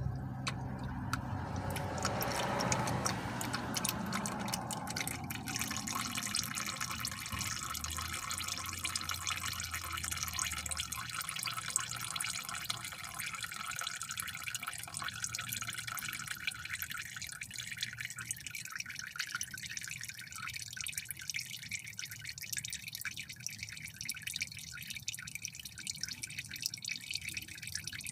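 Used engine oil draining out of the oil pan of a Chevy Cobalt's 2.2 L Ecotec engine: a steady trickle with fine dripping ticks. Its fuller sound fades after about five seconds as the stream thins.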